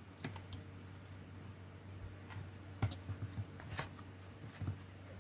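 A few light clicks and taps from handling the small acrylic electromagnetic launcher kit while setting it up for a launch test; the two clearest come about three and four seconds in.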